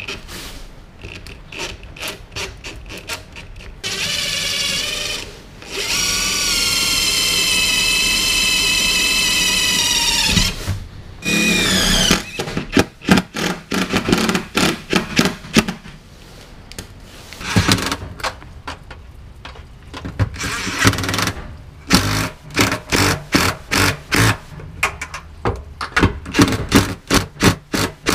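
DeWalt brushless cordless drill backing out a self-tapping screw. It first runs up to a steady whine for several seconds, then runs in many short trigger bursts with clicks and knocks.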